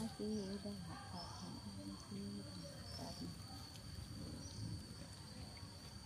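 Quiet outdoor ambience: a steady, high-pitched drone of insects with a few bird chirps. Faint voices murmur during the first couple of seconds.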